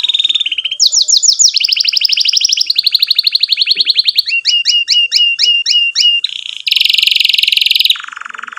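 Domestic canary singing a long song of rapid rolling trills. Each tour of fast repeated notes gives way to a new one every second or so, with a run of slower down-slurred chirps in the middle and a buzzy trill near the end.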